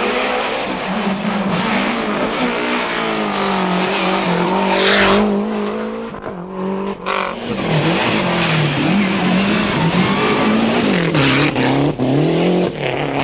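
Lancia Delta Group A rally car's turbocharged four-cylinder engine driven hard on a stage, its pitch repeatedly rising and falling as the driver accelerates, shifts and lifts, with a couple of short sharp bursts of noise.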